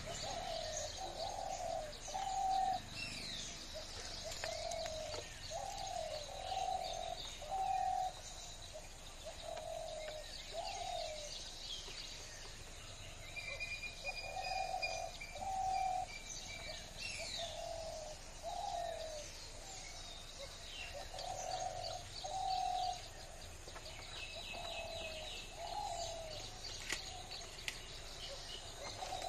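Birds calling: a low call of short notes in groups of two or three, repeated every one to two seconds, with higher chirps and twitters from other birds over it.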